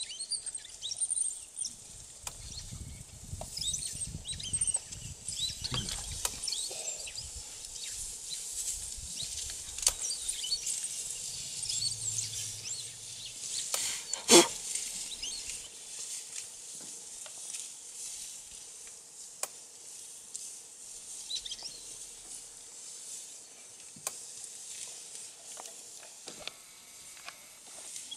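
Open savanna ambience: small birds chirping in quick high bursts, thickest in the first ten seconds, over rustling grass. A single sharp click stands out about halfway through.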